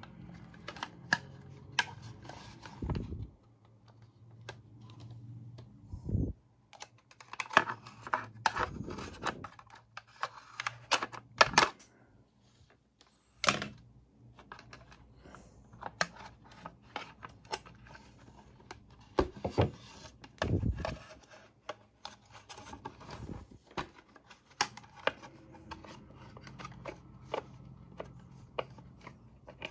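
Irregular plastic clicks, taps and knocks of a Bodum electric coffee grinder's housing and parts being handled and fitted together with a screwdriver, with a few duller thumps.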